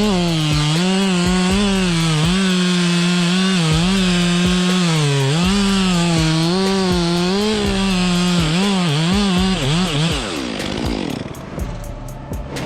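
Two-stroke chainsaw running at high revs while cutting wood, its pitch dipping and recovering as the chain loads up in the cut. About ten seconds in the throttle is released and the engine note falls away.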